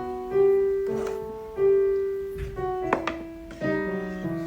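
Background piano music: slow notes and chords, each struck and left to die away.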